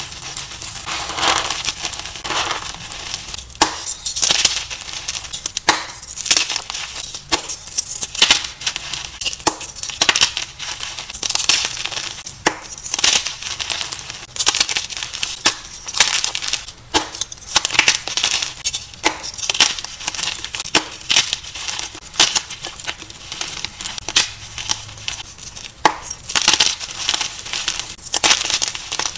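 Blocks of dyed gym chalk crushed and crumbled in bare hands: an irregular run of crunches and crackles as the chalk breaks apart into crumbs and powder.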